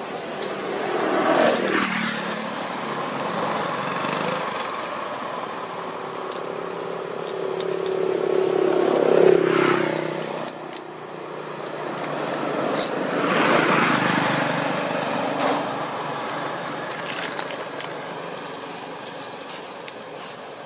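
Motor vehicles driving past on a road one after another. Three passes, about a second and a half in, around nine seconds in and around fourteen seconds in, each swelling and then fading with a falling pitch as it goes by.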